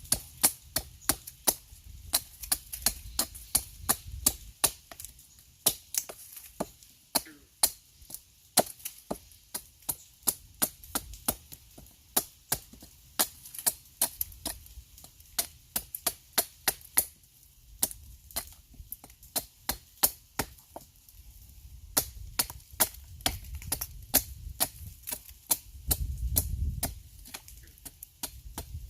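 Axe blade striking and shaving wood in quick, steady short strokes, about two to three sharp knocks a second, as the handle of a carved wooden utensil is shaped.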